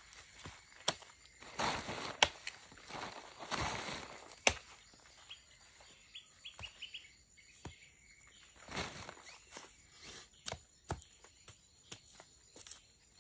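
Scattered sharp snaps and knocks with rustling as someone works among cassava plants, handling stems and the harvest bag; a bird chirps several times about halfway through.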